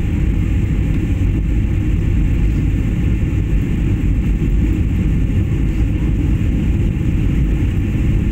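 Steady, loud cabin noise of a passenger airliner in flight, heard from a window seat: a low rumble of engines and airflow with a fainter hiss above it.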